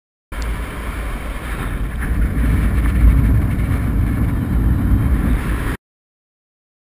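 Wind buffeting a camera microphone in flight under a paraglider wing: a loud, steady low rumble with hiss that starts suddenly and cuts off suddenly after about five and a half seconds.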